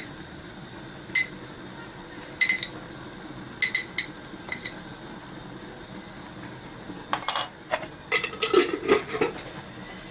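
A metal teaspoon clinking against a container as spices are measured out spoonful by spoonful: single sharp clinks a second or so apart, then a louder run of clinks and clatter near the end.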